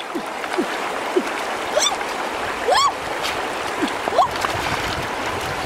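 Shallow rocky stream running, with splashing as hands scoop and grope through the water between the stones, and short gurgling plinks scattered throughout.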